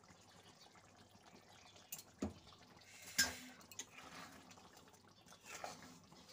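Prawn and potato curry simmering in a metal kadai: faint bubbling with a few sharp pops, the loudest about three seconds in.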